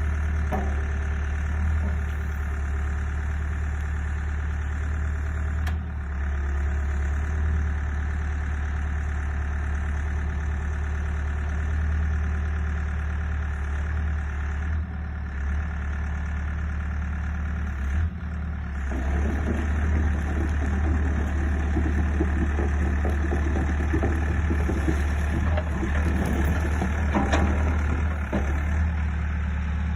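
Diesel engine of a Takeuchi TB180FRC compact excavator idling steadily. About 19 s in, a rougher clattering layer joins and it gets a little louder.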